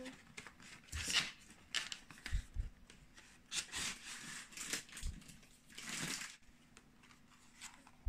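Cardboard pastry box being handled: a paper tray slid into its card sleeve, with repeated short scrapes and rustles of card and a few soft knocks on the worktop.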